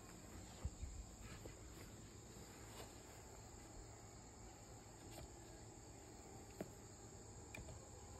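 Faint, steady high-pitched trilling of crickets, with a few light knocks.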